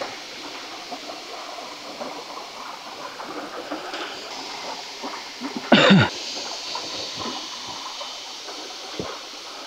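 Rustling and small crackles of a twisted vine cord and woven bamboo basket being handled, over a steady hiss of flowing stream water. About six seconds in comes one brief, louder sound that falls in pitch.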